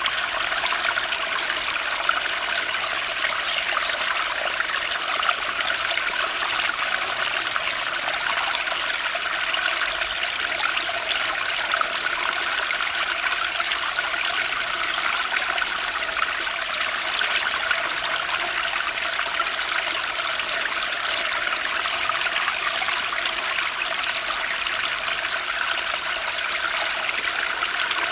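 Running water, a steady unbroken rushing trickle with little low rumble.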